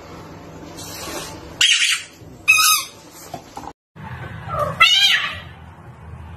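A Scottish Fold cat gives a short cry about five seconds in, its pitch bending. Earlier come a brief burst of hiss-like noise and then a short high squeal.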